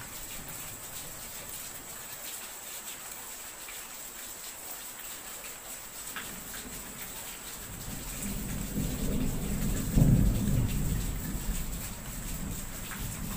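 Steady rain, with a roll of thunder that builds about eight seconds in, peaks with a sharp crack about two seconds later and rumbles away.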